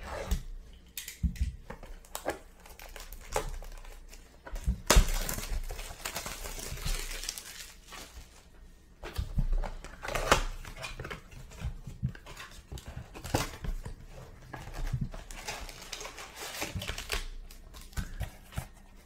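Cardboard blaster box of baseball card packs being handled and opened, and the wrapped packs tipped out, rustling and crinkling in irregular bursts with a few light knocks.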